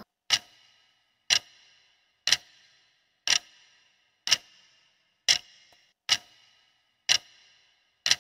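Clock-tick sound effect of a quiz countdown timer: nine short, sharp ticks, about one a second.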